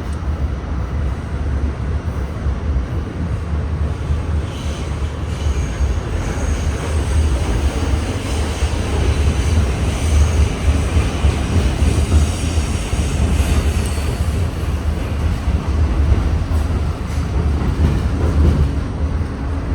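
R68 subway train running on the rails, a steady heavy rumble with wheel and track noise. A band of higher-pitched wheel noise builds from about four seconds in and eases off after about fourteen.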